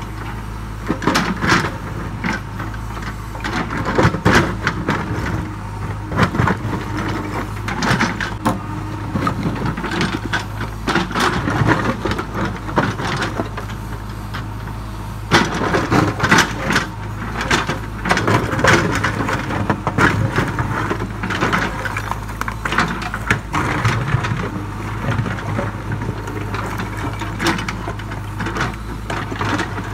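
JCB 3DX backhoe loader's diesel engine running steadily while its bucket digs and scrapes through broken rock, with irregular clattering and grinding of stone against the steel bucket.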